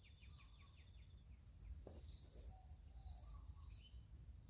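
Faint birdsong: small birds chirping in short high notes, with a quick series of falling chirps and a high rapid trill that stops about a second in.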